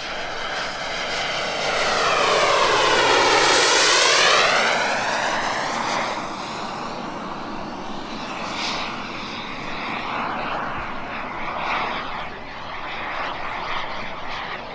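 EvoJet 220 gas turbine of a giant-scale RC Fiat G91 model jet flying past, its jet noise sweeping down and back up in a phasing way as it passes. It is loudest about three to four seconds in, then settles to a steadier, quieter sound as the jet moves away.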